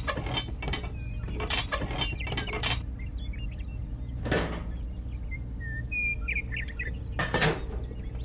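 Small clicks and taps of toy tractor parts being handled and fitted, a spring shock-absorber linkage and a plastic cultivator: a quick run of them in the first three seconds, one about four seconds in and two more near the end. A few faint bird chirps come in between.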